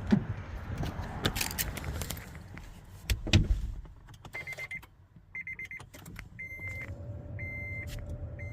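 Knocks and a car door shutting about three seconds in, the loudest sound, from a Honda Odyssey minivan. After that comes a high electronic warning chime from the van, repeating about once a second.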